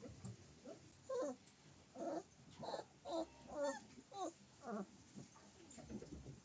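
A dog whining and whimpering in a run of about seven short, wavering cries over a few seconds.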